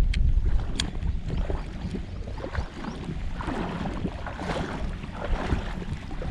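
Wind buffeting the microphone with a low rumble over the lapping and sloshing of shallow sea water, and two sharp clicks in the first second.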